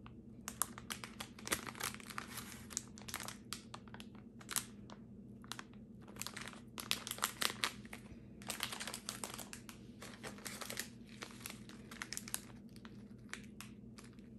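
Plastic snack wrappers crinkling as the packets are handled and pulled from a box. The crackles come irregularly in clusters, with short pauses between them.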